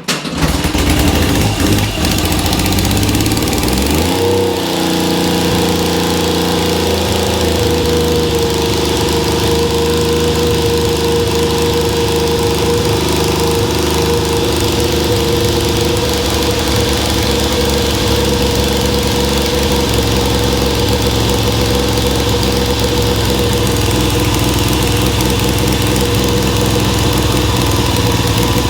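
1969 Triumph Trident's three-cylinder engine starting and running: the revs climb a few seconds in, then settle to a steady fast idle.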